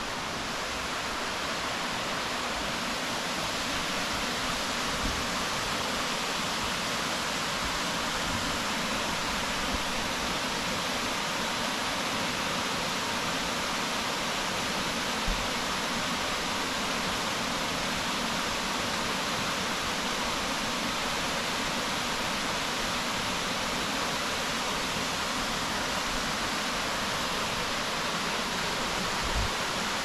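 Steady rush of falling water, even and unbroken, with a few faint low bumps.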